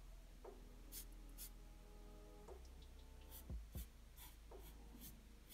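Black felt-tip marker drawing on paper: a series of short, quick scratchy strokes inking small criss-cross lines. There are two soft knocks about three and a half seconds in.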